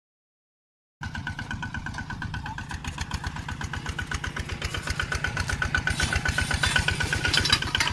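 A small walk-behind tractor engine starts up about a second in and runs steadily with a fast, even chugging while it works freshly tilled soil, a steady higher whine riding over it.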